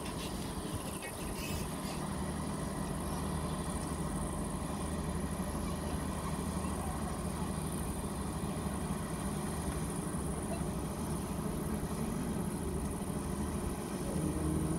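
Diesel engine of a river pusher boat driving a long barge, a steady low drone that grows slightly louder a second or two in.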